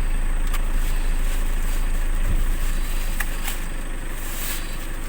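Car engine idling steadily, with a few short, sharp knocks over it.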